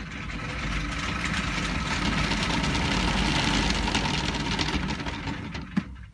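An R2-D2 droid's foot drive motor is running off a joystick, spinning its wheel clear of the floor. The mechanical running noise builds over the first few seconds, then eases and stops near the end, with a sharp click just before it stops.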